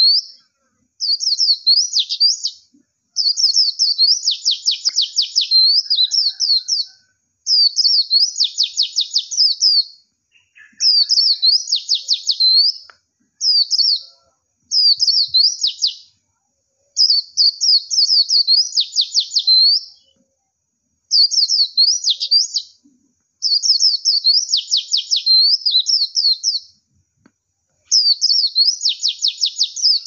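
A songbird singing the same high, rapid twittering phrase over and over, about ten times, each phrase a couple of seconds long with short silent gaps between.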